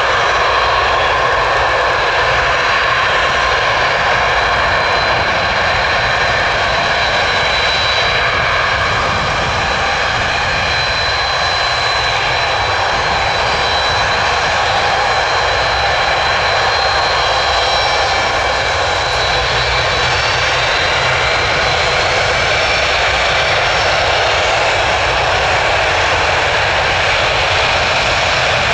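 Antonov An-225's six turbofan engines running, a loud, steady jet noise with a high whine over it that holds level throughout.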